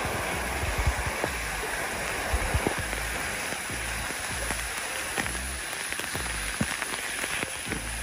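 Waterfall pouring and spattering into a rock pool, heard up close: a steady rush of falling water with many small, irregular splashes of drops, like rain on the water's surface.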